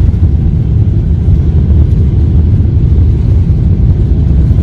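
Loud, steady low rumble inside a Boeing 777's cabin during the takeoff roll, with the engines at takeoff power as the jet accelerates toward rotation.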